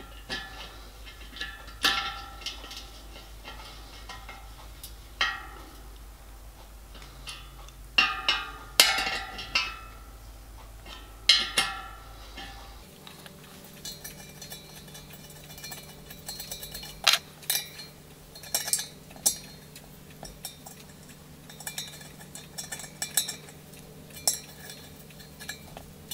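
Scattered metallic clinks and taps of a spanner and brass fittings as plugs, a cover and small nuts are fitted and tightened on a copper miniature locomotive boiler, with a few louder ringing clinks. A low steady hum underneath stops about halfway through.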